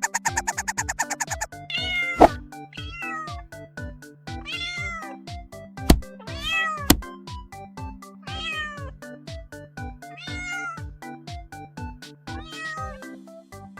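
Cat meowing repeatedly, about seven separate meows each rising then falling in pitch, over background music with a steady beat. A rapid ticking fills the first two seconds, and two sharp clicks come near the middle.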